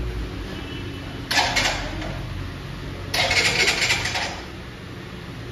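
Bajaj CT 125X's electric starter cranking the 125 cc engine in two short bursts, about a second apart, and the engine doesn't fire: the tank is nearly out of petrol.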